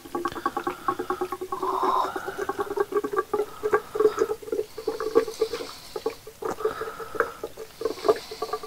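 Two-stroke fuel mix being poured into a Poulan Pro chainsaw's fuel tank on its first fill-up, glugging and gurgling in a rapid, uneven flutter.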